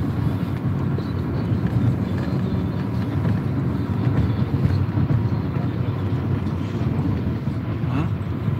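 Steady low rumble of road and engine noise inside a car moving at speed.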